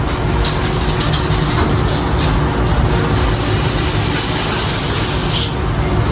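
TS-J39L automatic picture-frame moulding cutting machine running, a steady dense mechanical rumble with a faint steady tone and some short ticks early on. About three seconds in, a loud hiss starts, runs for about two and a half seconds, then cuts off suddenly.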